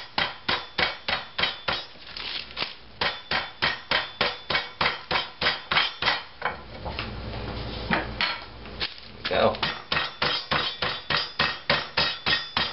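Small cast-iron skillet pounding a steak in a plastic bag against a wooden cutting board, about four blows a second, to tenderize the meat by breaking up its fibers. The blows stop for about two seconds in the middle, with a duller rubbing sound, then start again.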